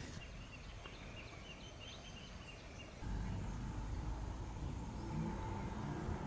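Faint bird calls chirping over outdoor ambience, then from about three seconds in a low rumble rises underneath.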